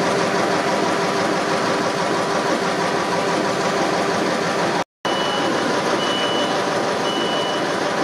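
A stationary engine's crankshaft and counterweights turning over, giving a steady mechanical running noise. About five seconds in, the sound cuts to other machinery running, with a high electronic beep repeating roughly once a second.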